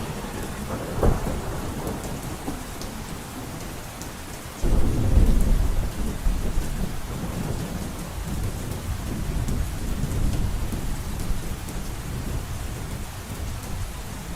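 Heavy rain drumming steadily on a roof, with thunder. There is a sharp clap about a second in, then a long low rumble that starts suddenly near the fifth second and rolls on for several seconds.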